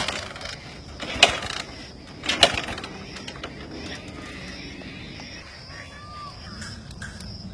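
Three sharp clicks, about a second apart, over a steady outdoor background with a thin high whine.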